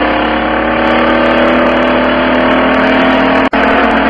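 Car engine running steadily, heard from inside the cabin, its pitch easing down a little. The sound drops out for an instant about three and a half seconds in.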